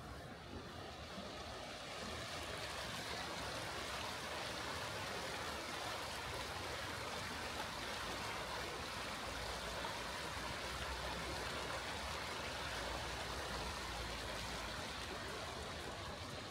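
Steady rush of flowing water that swells over the first couple of seconds, holds, then eases slightly near the end.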